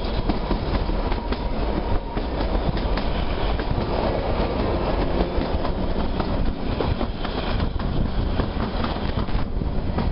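Narrow-gauge passenger train running steadily on the Kalka–Shimla mountain line: rumbling wheel and coach noise with many quick clicks and knocks from the wheels on the track, heard from an open coach window.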